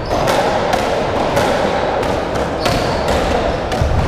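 Racketball rally on a squash court: the ball cracking off racket strings and the walls about six times, irregularly spaced, echoing in the court.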